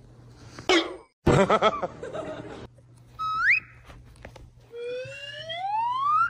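Comic edited sound effects: a brief chattering, laugh-like vocal sound, then two rising slide-whistle glides, a short one that levels off and a long one climbing steadily over the last second and a half.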